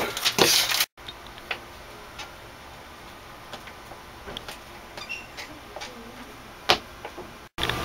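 A brief burst of noisy movement from people rushing through a doorway cuts off about a second in. Quiet small-room tone follows, with faint scattered ticks and clicks and one sharper click near the end.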